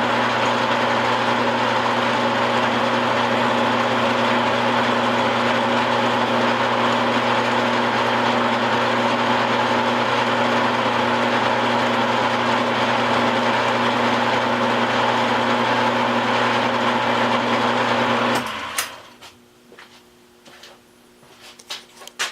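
Electric-motor-driven milling machine running steadily with a humming drone, then switched off about 18 seconds in and spinning down within a second or two. A few light clicks and knocks follow near the end.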